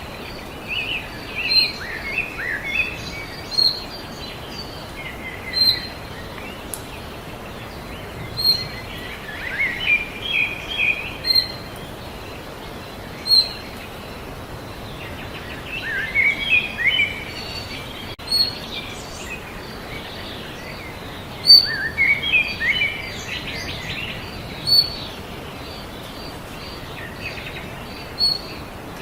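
Songbirds singing: warbling phrases that come every several seconds, and a short high chirp repeated every second or two, over steady background noise.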